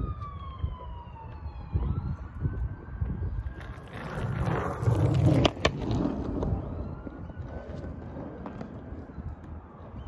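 Skateboard wheels rolling on a concrete path, swelling to their loudest a few seconds in as the board passes close, with a sharp click midway. A faint high tone slowly falls and rises in the background.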